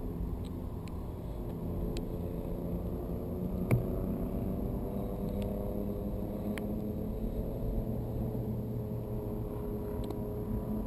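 Steady low rumble of air buffeting the microphone of a weather balloon's camera payload in flight, under a faint steady hum, with a few sharp clicks from the payload, the loudest about four seconds in.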